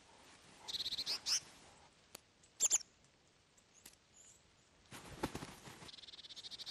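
High chirps and trills of a small forest animal: a rapid high trill ending in a rising note, then a short high chirp falling in pitch. Soft rustling and another high trill follow near the end.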